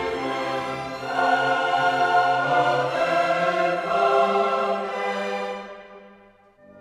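Background music: a choir singing over an orchestra, fading out near the end, where a quieter string passage begins.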